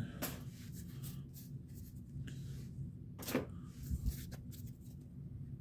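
Pokémon trading cards and foil booster packs being handled: soft rustles, slides and light clicks, one a little louder about three seconds in, over a steady low hum.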